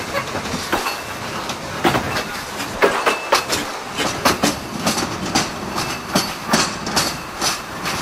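Narrow-gauge train running along the line, its wheels knocking over the rail joints about once or twice a second with a steady rumble underneath.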